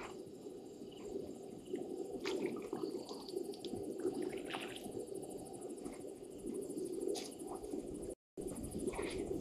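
Elephants drinking at a waterhole: short splashes and drips of water from their trunks over a steady low hum. The sound drops out for a moment near the end.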